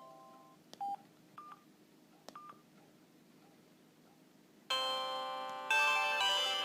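Samsung SGH-E330 mobile phone's speaker: one ringtone fades out, then three short key beeps sound as the next tone is picked. Near the end the next polyphonic ringtone starts with loud chord-like notes.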